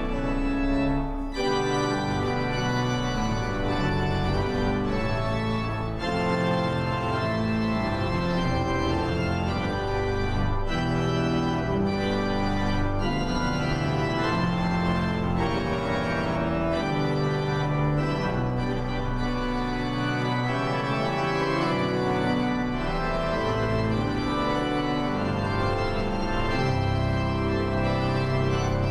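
Church organ music: full, sustained chords over a moving bass line, the harmonies changing every second or so.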